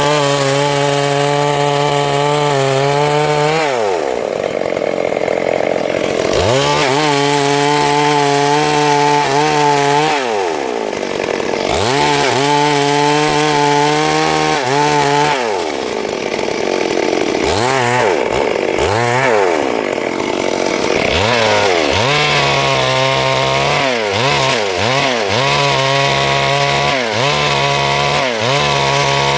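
Stihl MS 382 two-stroke chainsaw cutting through wood at high revs. It holds a steady pitch for a few seconds at a time, then the pitch falls and climbs back as the cut loads it or the throttle is eased, with quicker dips and recoveries near the end.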